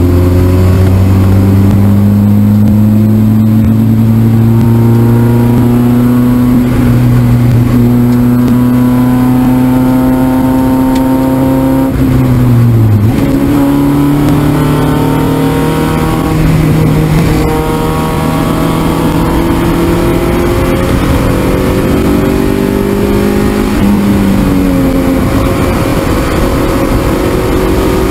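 1.6-litre Mazda Miata four-cylinder engine at racing speed on track, heard from inside the car. The engine note climbs slowly through long pulls, with breaks in the note about twelve, seventeen and twenty-four seconds in before it climbs again.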